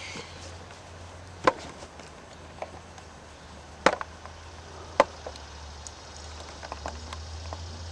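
Sharp wooden clicks and knocks as wooden lacing pins are worked through the front seam of a canvas tipi. There are three louder knocks spread over several seconds and a few fainter ticks between them.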